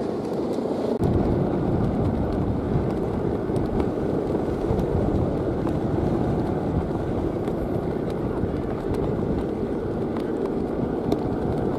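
Wind buffeting the microphone: a steady low rumbling noise with no clear tone, heavier from about a second in.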